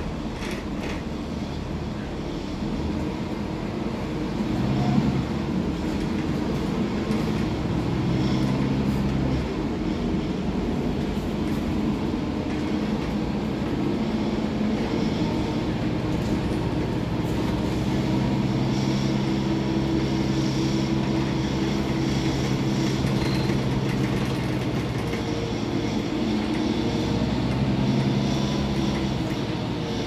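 Mercedes-Benz OC500LE city bus heard from inside the passenger cabin as it drives, its engine drone rising and falling in pitch as the bus speeds up and slows.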